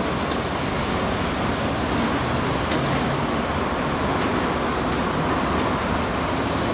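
EP2K DC electric locomotive hauling a passenger train, approaching slowly: a steady, even noise of the train blended with city traffic hum.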